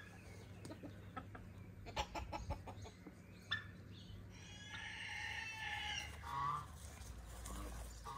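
Free-ranging chickens calling. A rooster gives one long crow about halfway through, and hens make short clucks after it. A quick run of faint knocks comes about two seconds in.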